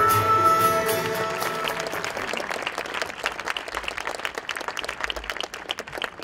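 A piece of music ends on held notes in the first second or two, and audience applause takes over, thinning out and fading.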